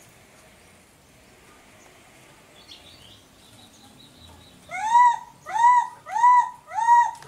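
Baby macaque calling: four loud, high cries in quick succession, each rising then falling in pitch, starting about two-thirds of the way in.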